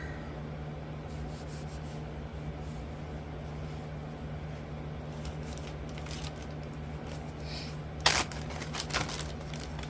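Metal motorcycle clutch parts being handled, with faint scraping and rubbing, a sharp metallic clink about eight seconds in and a few lighter clicks just after, over a steady low hum.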